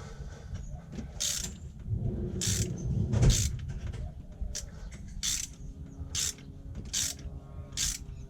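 Socket ratchet wrench being worked back and forth while cleaning out a head-bolt thread in an engine block, the pawl clicking in short bursts on the return swings about once a second. There is a duller, louder knock about three seconds in. Oil trapped in the blind bolt hole is being forced out as the tool goes down.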